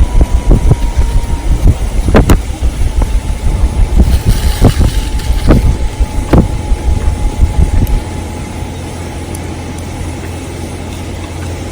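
Wood campfire burning, with a few sharp pops of crackling wood over a heavy low rumble that drops off about eight seconds in.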